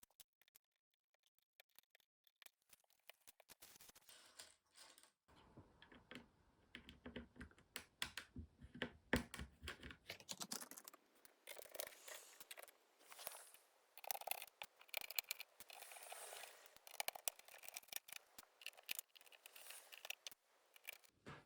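Typing on a Keychron K4 mechanical keyboard with factory-lubed Gateron Red linear switches. A few scattered key presses come first, then fast continuous typing from about four seconds in.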